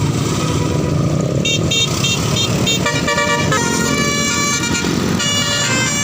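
A bus's multi-tone telolet (basuri) horn playing a melody. A run of short toots starts about a second and a half in, then longer notes change pitch from note to note. A vehicle engine runs underneath.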